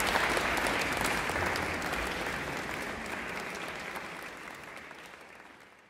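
Audience applauding in a large hall: a dense patter of many hands clapping that fades gradually to almost nothing.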